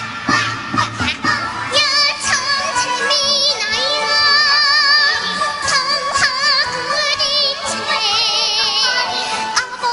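Children's choir singing a song with violin accompaniment. Held notes waver with vibrato around the middle and again near the end.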